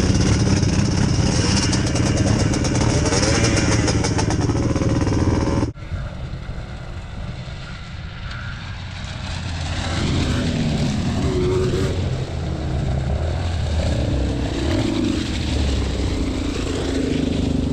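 Quad (ATV) engine running hard close by; after a sudden cut, a quad engine revving up and down, its pitch rising and falling.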